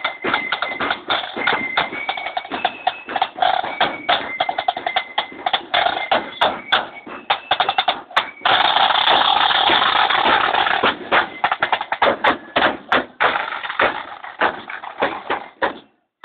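Marching flute band playing: flutes carry a tune over rapid snare drum strokes and a bass drum, with a sustained snare roll about halfway through. The sound cuts off suddenly just before the end.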